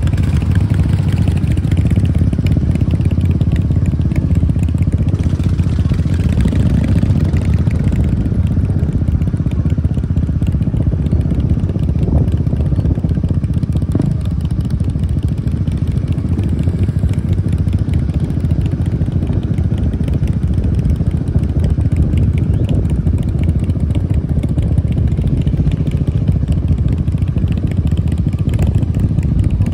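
Motorcycle engine running at low revs while riding slowly, a steady low rumble.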